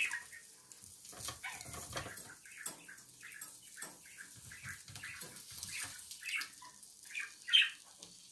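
Wooden spatula scraping and prodding a frying egg on the ridged plate of an electric grill: a string of short, irregular scrapes and taps over a faint sizzle, with one louder scrape near the end.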